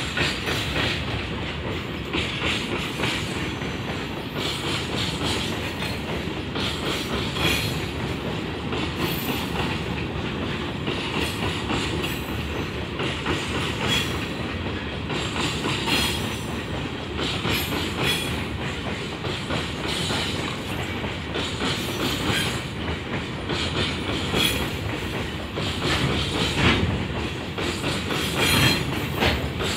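Coal hopper wagons of a long freight train rolling past close by, a steady rumble of wheels on rail with repeated clacks as the wheels cross the rail joints.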